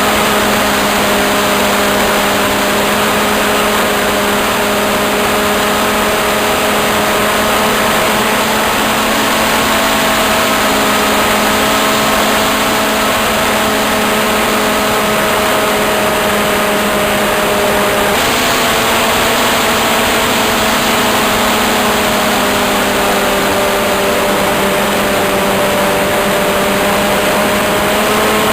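Radio-controlled model airplane's motor running steadily at high speed close to the microphone, its pitch drifting slightly up and down, over a steady rushing hiss.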